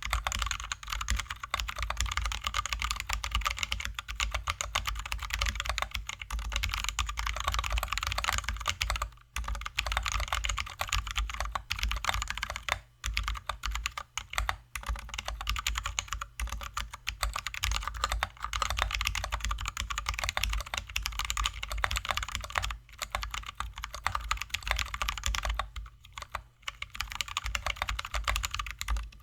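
Fast continuous typing on a mechanical keyboard with lubed and filmed Zealios V2 67g tactile switches and XDA-profile keycaps, a dense stream of keystrokes broken by a few brief pauses.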